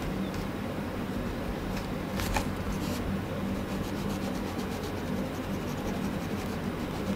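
Pencil scratching on drawing paper in quick, short shading strokes, over steady background noise with a low hum.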